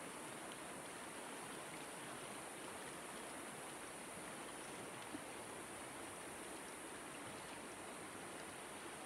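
Shallow mountain river flowing steadily over its stony bed, an even rush of water. A single faint tick about five seconds in.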